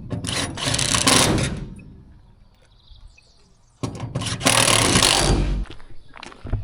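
A power tool run in two bursts of about a second and a half each, with clicks and knocks around them.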